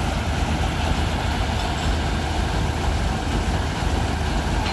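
A heavy crane tow truck's diesel engine idling steadily, a low rumble with no revving.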